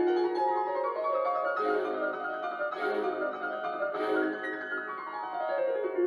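Soft instrumental background music led by piano, with light accents about every second and a run of falling notes near the end.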